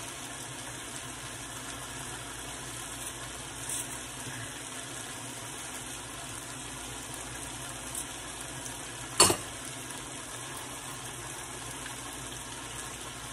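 Chicken and peppers sizzling steadily in a frying pan on a gas stove. A single sharp knock stands out about nine seconds in, with a couple of fainter clicks before it.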